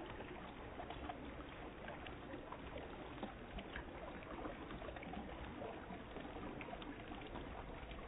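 Flowing river water: a steady low rush with scattered faint ticks.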